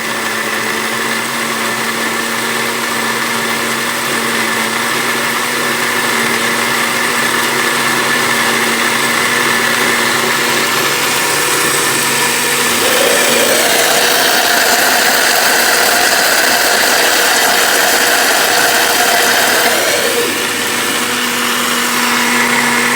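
Electric kitchen mixer grinder running loud and steady, grinding raw rice, grated coconut, black pepper and cumin into a dosa batter paste. About halfway through its motor note shifts higher for several seconds, then settles back.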